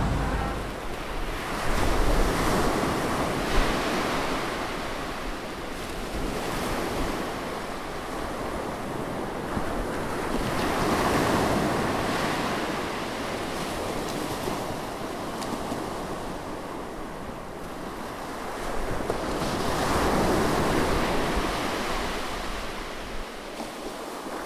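Sea waves washing in, swelling and fading about every nine seconds, with wind buffeting the microphone.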